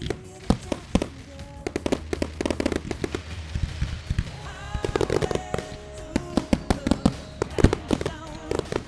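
Fireworks bursting in rapid, irregular bangs over loud music played for a pyromusical show. The sharpest bangs come about half a second in and near the end.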